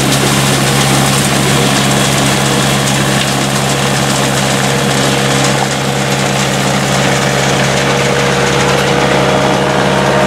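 Monchiero walnut harvester running steadily: a constant engine drone with a broad noisy hiss from its sweeping brushes and pickup working through leaves and nuts.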